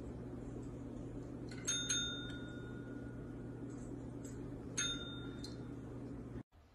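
Desk service bell struck by a cat's paw: two quick dings close together about two seconds in, then a third about three seconds later, each ringing on after the strike. A faint steady hum runs underneath.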